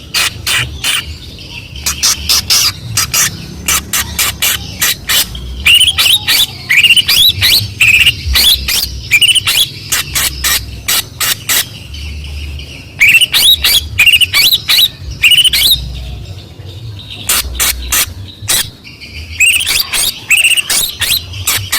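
Long-tailed shrike (cendet) singing hard: rapid sharp clicking notes broken by bursts of quick up-and-down whistled phrases, in a song full of mimicry of other birds, played as a lure to provoke a shrike into singing.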